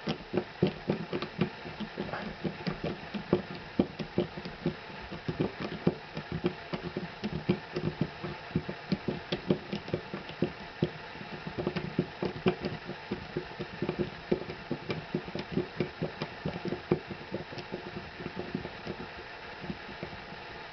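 Wood screws being turned out of a 2x4 by hand with a Channellock 6-in-1 screwdriver: a run of irregular clicks and ticks, several a second, as the driver turns and regrips in the screw heads. The clicking thins out near the end.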